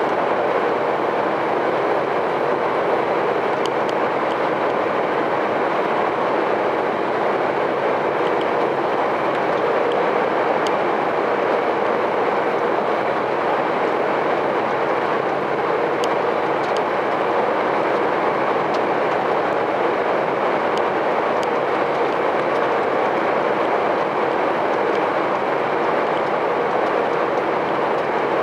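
Lorry driving at steady highway speed, heard from inside the cab: an even drone of engine and tyre noise, with a faint steady hum and a few light ticks.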